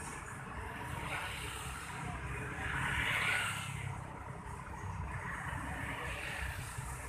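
Motor vehicle engines running in a low, steady rumble, with a louder hissing swell about three seconds in.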